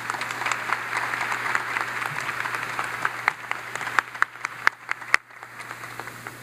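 Applause from a sparse seated audience: a dense patter of many hands that thins after about three seconds to a few louder single claps, then dies away a little after five seconds in.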